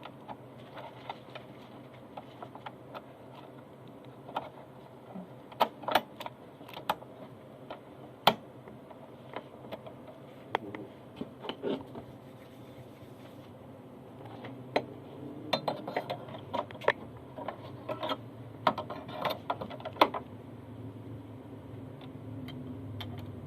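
Irregular clicks and knocks of plastic and metal parts being fitted and handled as a Singer Starlet 6680 sewing machine is reassembled, with a low steady hum underneath that grows in the second half.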